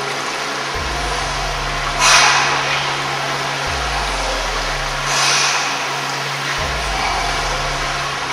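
A freediver taking loud, forceful breaths through the open mouth, hyperventilating before a breath-hold. There is a strong gust of air about every three seconds over a steady hiss and a low hum.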